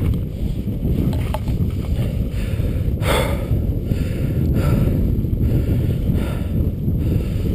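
Wind rumbling on an action camera's microphone. Three short breathy rushes of sound come about a second and a half apart, starting about three seconds in.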